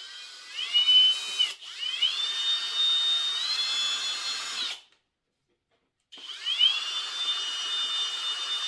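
Cordless drill with a 1/8-inch bit boring through the hard plastic base of a toy. The motor spins up with a rising whine and runs steadily, dips briefly, stops for over a second about halfway through, then spins up again and runs on.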